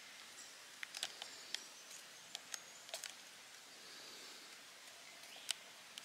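Short-beaked echidna nosing and scrabbling through dry leaf litter between rocks: faint, scattered sharp crackles and ticks, the loudest one near the end. Faint birdsong lies behind it.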